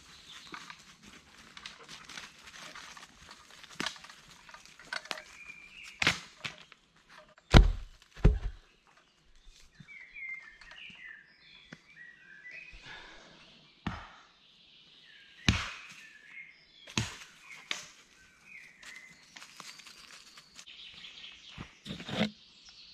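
Heavy wooden thunks and knocks of oak logs and wood pieces being handled and set down, a few at a time several seconds apart, the loudest a pair about eight seconds in. Footsteps on the forest floor and birds chirping between them.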